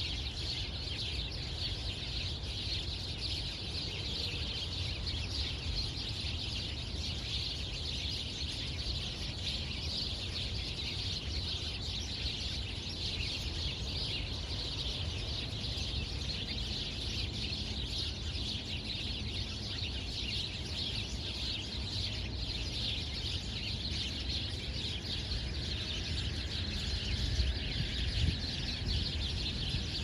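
A large flock of small birds chattering and chirping all at once in a dense, unbroken chorus, over a low rumble.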